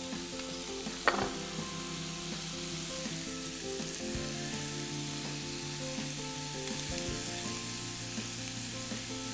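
Shredded chicken in olive oil and butter sizzling steadily in a frying pan while it is stirred with a wooden spoon, with a single short knock about a second in.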